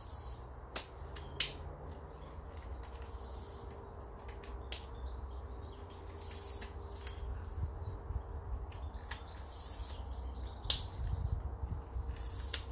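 Camera tripod being handled as its legs are pulled out and locked, giving a few scattered sharp clicks and clacks over a steady low rumble.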